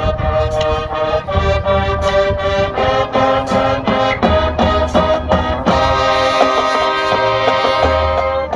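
High school marching band playing its field show: brass chords over drums, moving through a run of short, punched chords and then holding one long chord from a little before six seconds in.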